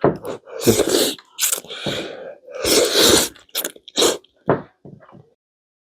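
Several loud breathy bursts of air and mouth noise while eating hot noodle soup, followed by a few short clicks. The sound cuts off abruptly about five seconds in.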